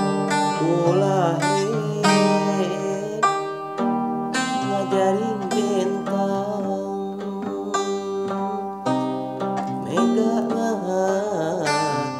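Kacapi, the Sundanese plucked zither, playing a rippling run of notes under a Sundanese song. A male voice sings a line about a second in and returns with long, winding, ornamented phrases around five seconds in and again near the end.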